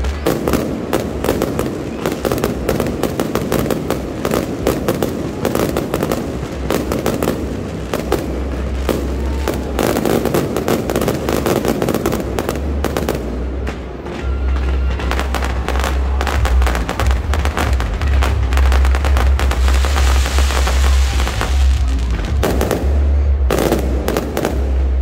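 Fireworks going off: a dense, rapid run of crackles and pops throughout, with heavy low booms building up from about halfway in.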